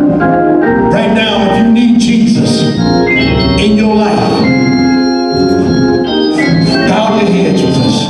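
Church organ playing held chords that change every second or so.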